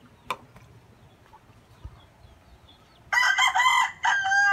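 A rooster crowing: one long pitched call of about two seconds in two parts, falling in pitch at the end, starting about three seconds in. A single sharp knock comes just before, under a second in.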